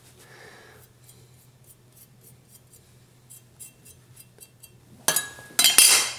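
Faint small clicks, then two loud, short scrapes near the end: a kitchen knife scraping chopped garlic off the wooden chopping board to add to the dressing.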